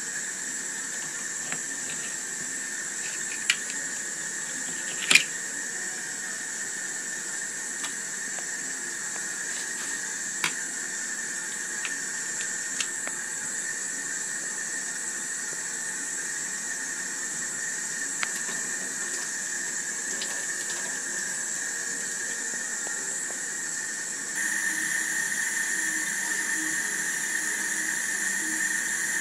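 Steady hiss of a kitchen tap running into a stainless steel sink, with scattered sharp clicks of a flathead screwdriver and oyster shells knocking together; the loudest click is about five seconds in.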